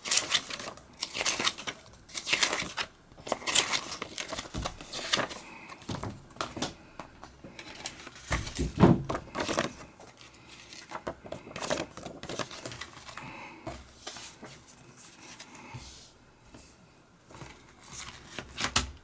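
Plastic wrapping crinkling and tearing while a DVD case is unwrapped and handled, with scattered clicks and knocks of the plastic case and one louder knock about nine seconds in.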